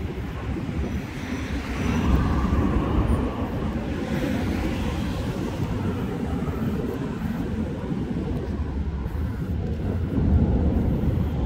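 Road traffic on a multi-lane city road: a steady low noise of cars going by, swelling as vehicles pass about two seconds in and again near the end.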